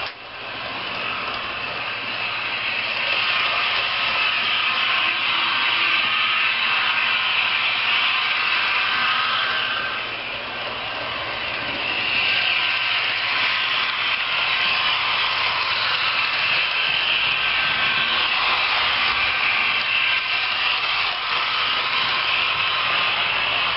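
HO-scale model trains running on the layout: a steady whir and rumble of small motors and metal wheels on the rails. It gets somewhat louder about halfway through.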